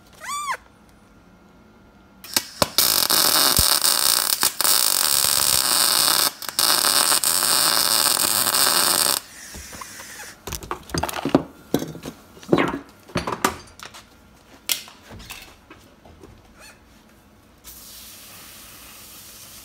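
Arc welder crackling and hissing for about seven seconds, with a short break part way, as a weld is laid on a steel shifter yoke joint. A few scattered knocks and handling sounds follow. Near the end a garden hose starts spraying with a steady hiss, quenching the hot part.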